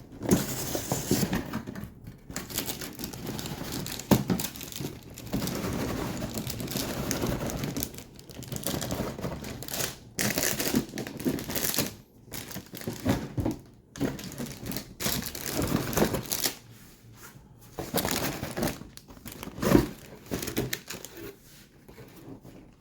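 Model kit packaging being handled: plastic bags of parts crinkling and rustling as the box is opened and the contents are sorted, with a few sharp knocks.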